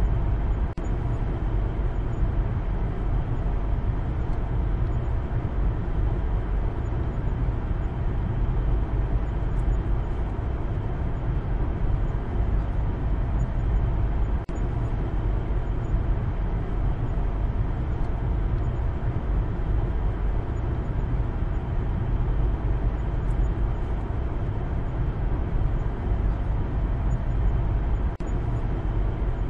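Steady driving noise inside the cabin of a Maruti Suzuki Baleno hatchback on the move: a continuous low rumble of engine and tyres on the road.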